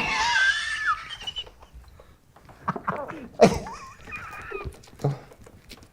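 Wheezing laughter: two bouts of high-pitched, wavering squeaks, the first right at the start and the second about three and a half seconds in.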